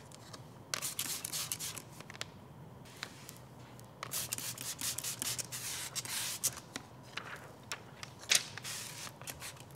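Hands handling a paint protection film piece: rustling and rubbing in irregular spells, with a few sharp crackles.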